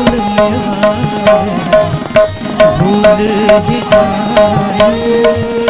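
Instrumental interlude of a ghazal: tabla playing a steady rhythm of about two strokes a second, with low pitch glides on the bass drum, under sustained harmonium notes.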